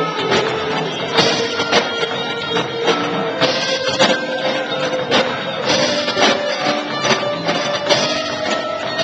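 Live rock band playing, with guitar and drum kit: steady drum and cymbal hits under a long held note that climbs slowly in pitch.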